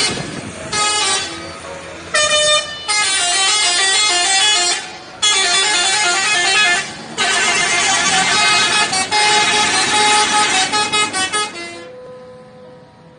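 Telolet musical multi-tone air horn of bus SCH 716 playing a quick tune of stepping notes in several loud bursts, the longest running for several seconds. It stops about twelve seconds in, leaving fainter steady tones.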